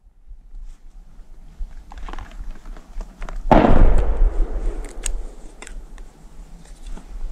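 A single gunshot from a hunting gun about halfway through, its echo dying away over about a second, followed by a few faint knocks.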